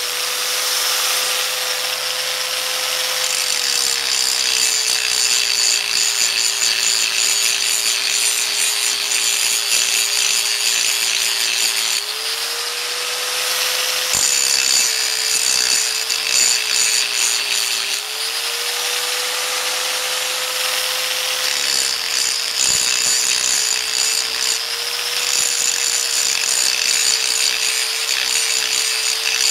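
Electric angle grinder running continuously, its grinding wheel taking metal off a roller rocker arm so it will clear the rocker stud. The motor's pitch sags each time the wheel bites into the metal, with a harsh grinding hiss, and rises again when the pressure eases, several times over.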